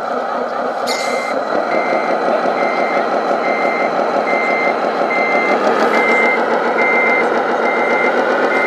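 Reversing alarm of a radio-controlled Scania 8x8 hook-lift truck model, a single-pitch beep repeating a little faster than once a second, starting about a second in, over the model's steady engine sound.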